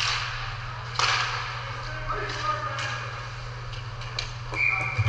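Ice hockey play on a rink: skates scraping the ice and sharp clacks of sticks and puck, over a steady low hum. There are some distant voices, and a short high tone near the end.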